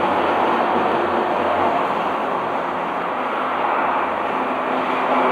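Hot air rework station blowing a steady hiss of air, the kind used to heat a phone's CPU off the board.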